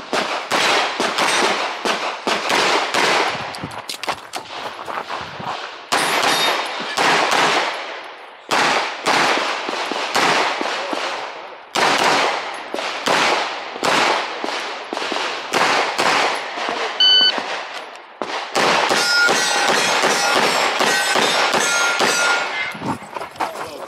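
Walther PDP Fullsize pistol fired rapidly in quick strings of shots, with short breaks between strings as the shooter moves between positions. A metallic ringing sounds over the shots in the last few seconds.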